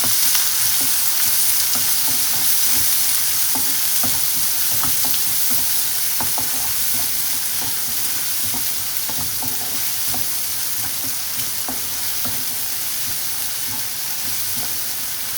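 Sliced onion, green chili and ginger sizzling in hot oil in a pan, with a utensil scraping and knocking as the mix is stirred. The steady sizzle runs throughout, with irregular light clicks from the stirring.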